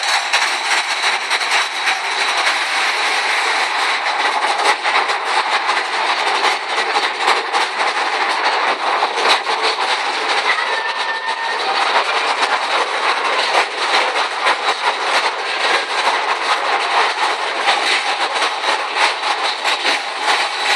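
Mine-train roller coaster running along its track, heard from a seat in one of its cars: a loud, steady rattle and clatter of the cars on the rails.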